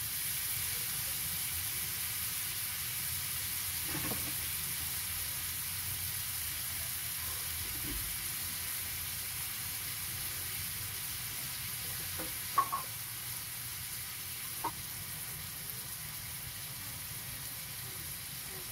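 Pork, onion and yellow bell pepper sizzling in hot oil in a wok: a steady frying hiss. A few short sharp clicks stand out, the loudest about two-thirds of the way through.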